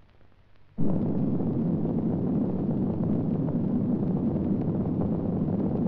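Sound effect of a nuclear explosion: a sudden blast about a second in, then a loud, steady low rumble that keeps going.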